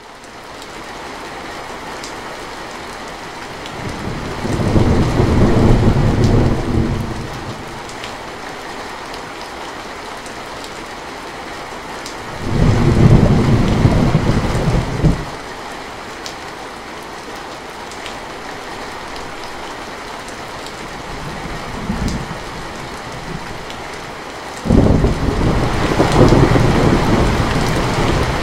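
Heavy rain falling steadily, fading up in the first second, with rolls of thunder: a long rumble about four seconds in, another near the middle that cuts off sharply, a brief low one later, and a long one starting near the end. The thunder rumbles are the loudest sounds.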